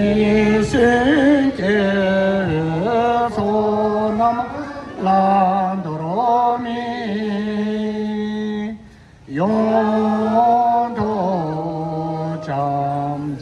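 Voices chanting a slow melodic prayer or song, in long held notes and phrases, with a short breath-pause about nine seconds in.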